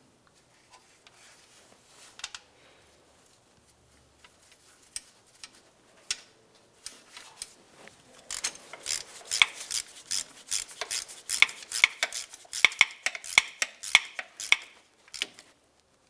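Hand ratchet clicking in quick runs of strokes as it screws a transmission cooler line connector down into the transmission, after a few seconds of faint handling clicks.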